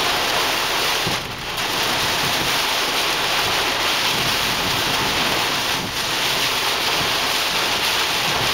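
Torrential rain beating on a car's roof and windshield, heard from inside the cabin as a dense, steady hiss.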